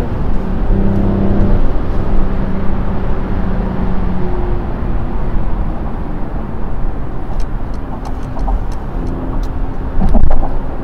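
Steady in-cabin driving noise of a Mercedes E450 cabriolet at motorway speed: tyre and road rumble with a low engine hum.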